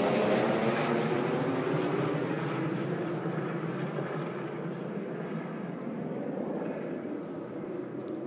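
Helicopter flying over, its rotor and engine sound fading steadily as it moves away.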